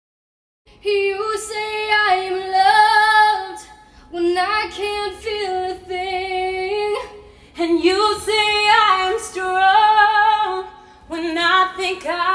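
A woman's voice singing without accompaniment, starting about a second in after a moment of silence. She sings in phrases of about three seconds each, holding long notes, with short breaks between them.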